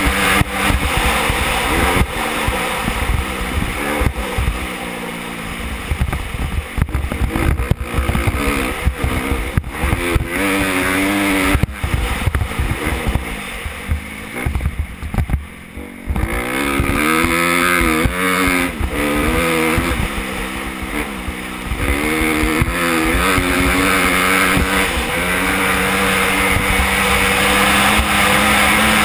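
Engine of a 2014 Honda CRF250R, a single-cylinder four-stroke dirt bike, revving up and down as it is ridden. It eases off briefly about halfway through, then holds a steadier pitch near the end.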